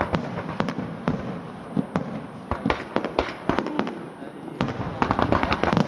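Fireworks display: rapid, irregular bangs and crackles of bursting shells, coming in dense clusters around the middle and again near the end.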